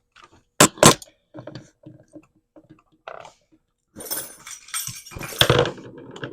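Screwdriver working the ground-wire terminal screw of an old wall outlet, metal clicking and clinking: two sharp clicks about half a second in, then lighter ticks, and a denser stretch of metallic rattling and handling from about four seconds in.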